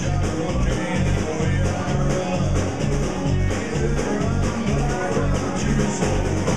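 Live rock band playing electric guitar over a drum kit, with a steady driving beat and cymbals.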